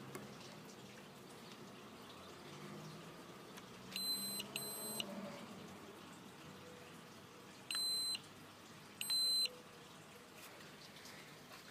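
Handheld transmitter of a Cheerson CX-10 nano quadcopter beeping as it is switched on and paired with the drone: a pair of short high beeps, then two more single beeps a few seconds later, about a second and a half apart.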